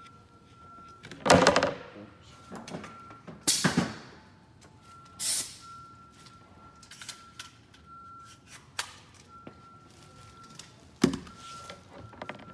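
Plywood cabinet parts being handled and fitted: a few loud wooden knocks and scrapes about a second in, near four seconds and near the end, with smaller clicks and a short hiss between.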